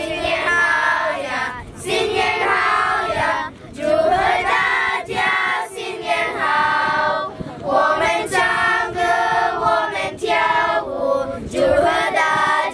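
A group of children singing together in chorus, in sung phrases with short breaks between them.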